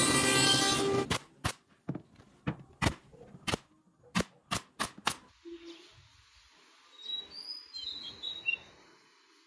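A table saw running as a board is fed through, cut off abruptly about a second in. It is followed by about ten sharp shots of a pneumatic nail gun over the next four seconds as the wooden box panels are fastened, then a quieter stretch with faint high chirps.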